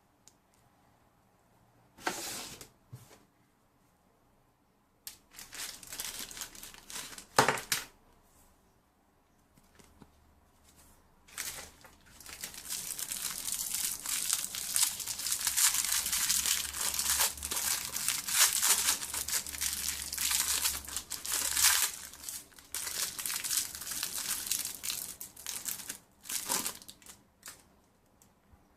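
Packaging being handled and opened by hand: crinkling and tearing. It comes first in a few short bursts with one sharp knock, then as a long, continuous stretch of crinkling that stops shortly before the end.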